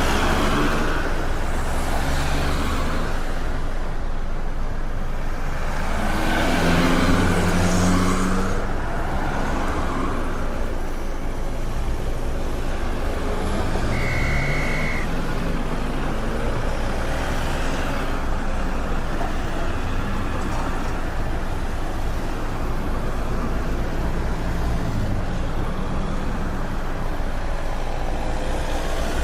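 City street traffic: cars and heavier vehicles passing with engines running, the loudest pass about seven seconds in. A brief high beep sounds about fourteen seconds in.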